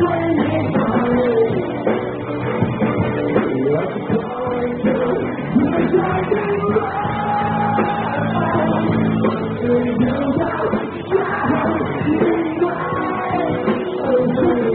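Live rock band playing a song: strummed guitars, bass and drums under a lead singer's vocal.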